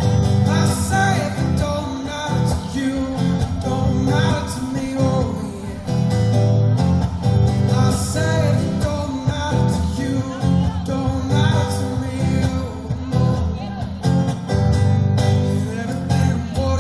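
A male singer-guitarist performing live, singing over acoustic guitar, with a strong bass.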